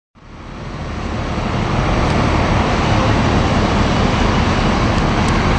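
Steady engine and traffic noise of transit buses at a bus terminal, fading in over the first two seconds.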